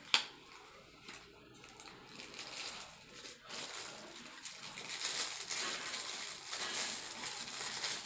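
Paper and plastic packaging being handled and crinkled as a small card box is opened. There is a sharp snap just after it begins, then rustling that grows louder over the last few seconds.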